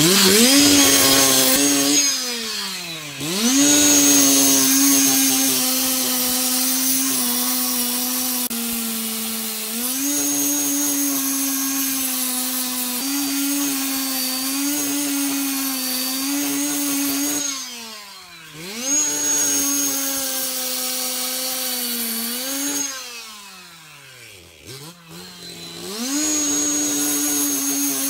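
Two-stroke petrol cut-off saw with a diamond blade cutting into a concrete floor, its engine held at high revs with a steady whine. Three times the revs drop away toward idle and climb back up: about 3 s in, about 18 s in, and for a couple of seconds around 24 s in.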